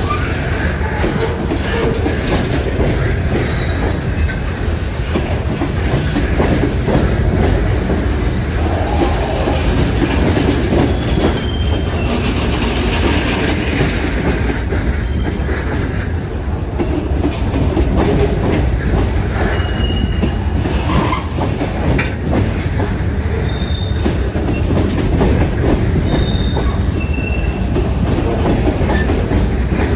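Freight cars of a stone train rolling past on the CSX line: a steady heavy rumble of wheels on rail with clacking, and several brief high-pitched wheel squeals.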